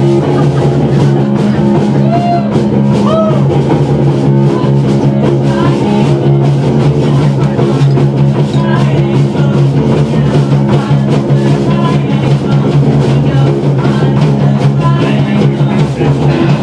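Punk rock band playing live, loud: guitar over a steadily beating drum kit.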